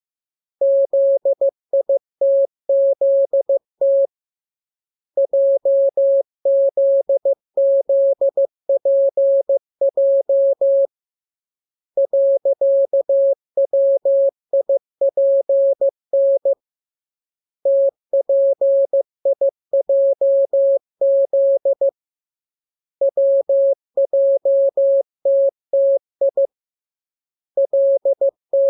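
Morse code sent as a single steady beep tone, keyed on and off in rapid dots and dashes. The characters come in groups a few seconds long with roughly one-second pauses between them, as code-practice text of the letters K, M, U, R, E, S, N, A, P, T, L, W, I, J, Z and the period.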